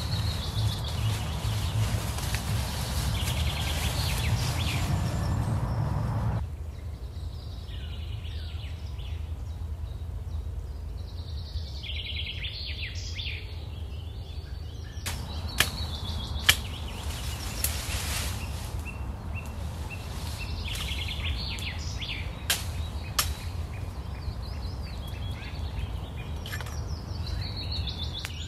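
Small birds singing and chirping in woodland over a steady low rumble. There are a few sharp clicks or snaps about halfway through.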